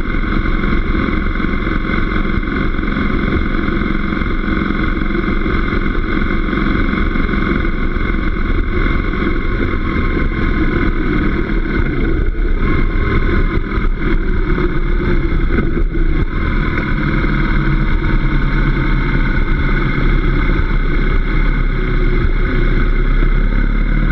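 A motorcycle being ridden at a steady road speed: the engine running under the rush of wind and road noise, heard from on the bike.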